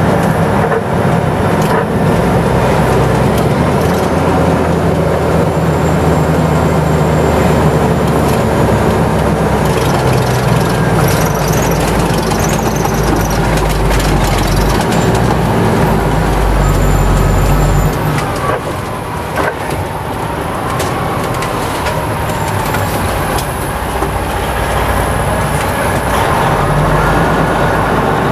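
Heavy fire rescue truck's engine running as it drives, with steady road and wind noise; the sound drops somewhat about two-thirds of the way in.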